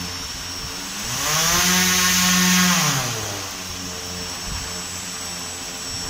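The small electric motor and propeller of a homemade toy RC aeroplane run up to a higher-pitched whine about a second in as the throttle is pushed up. It holds there for about two seconds, then winds back down to a lower, steady hum. This is the propeller's power being shown off.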